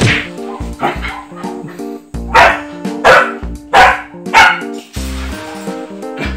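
Belgian Malinois puppy barking in short, sharp barks, about six in all, the four loudest in quick succession in the middle, over background music; the owner takes them for angry barks.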